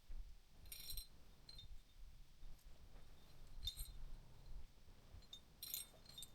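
Metal climbing hardware, carabiners and rigging gear, clinking faintly in three brief jingles: under a second in, near the middle and near the end, with a few small ticks between.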